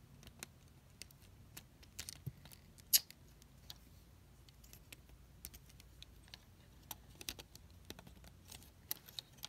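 Faint, scattered clicks and light rattles of Lego plastic pieces as a built figure is handled and its joints are moved, the sharpest click about three seconds in. A faint steady hum runs underneath.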